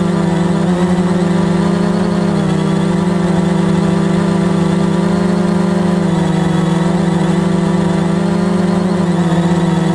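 Veho Muvi Q1 quadcopter drone in flight, its motors and propellers giving a loud, steady buzzing hum that shifts pitch slightly a few times as the motor speeds adjust.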